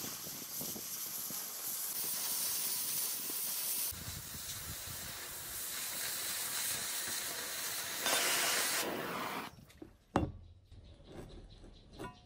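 Oxy-fuel cutting torch hissing steadily as it cuts through the steel of an axe blade. The hiss cuts off about three-quarters of the way through, followed by two sharp knocks.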